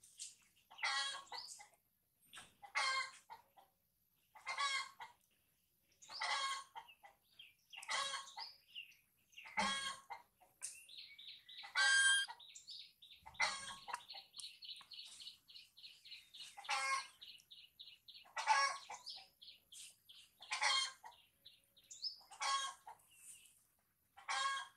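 A baby monkey crying: short high calls, repeated about every two seconds, the distress cries of an infant left on its own. Partway through, a rapid run of short high chirps carries on for several seconds.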